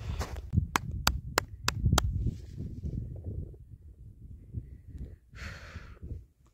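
Footsteps sinking into deep snow, with a quick run of five sharp clicks in the first two seconds and a breathy exhale near the end.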